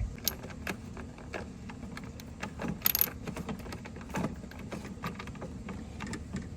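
Scattered metallic clinks and light knocks of tools and parts while a lawnmower's rear wheel, with its new drive gear, is fitted back on, with a sharper clink about three seconds in.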